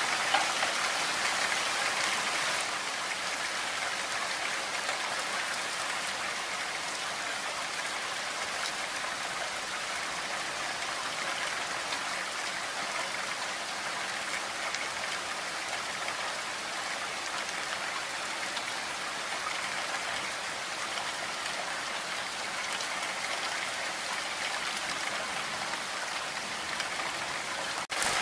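Heavy rain falling steadily, an even hiss of many drops, with a momentary break in the sound near the end.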